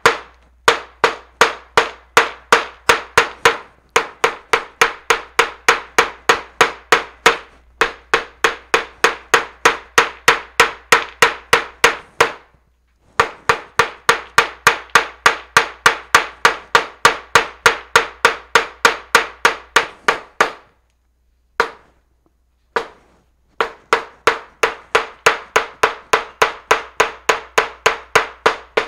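Small hammer pounding a leaf through a paper towel onto paper, hammering the leaf's pigment into the paper. About three or four quick, even blows a second, each with a short ring, come in runs of several seconds with brief gaps, and a longer pause about two-thirds through is broken by a couple of single blows.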